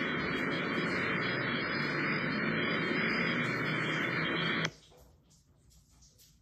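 Steady hiss of static, with no voices in it, cutting out abruptly about four and a half seconds in and leaving near silence.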